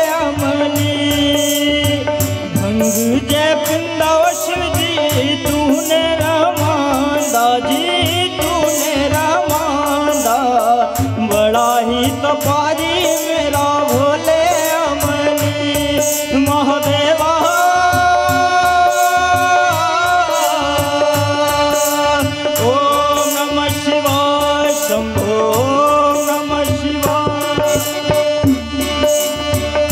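Devotional bhajan music: tabla playing a steady rhythm under a wavering melody from voice and keyboard. Long held notes come about two-thirds of the way through.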